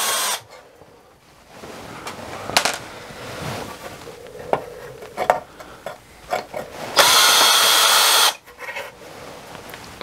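Cordless drill backing screws out of a control box cover. The motor runs briefly and stops just after the start, then runs again for about a second and a half some seven seconds in, with a few handling clicks in between.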